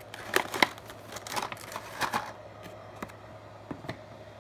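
Toy packaging and small plastic parts being handled as accessories are taken out of the box: a scatter of light clicks and rustles, busiest in the first two seconds, then only a few taps.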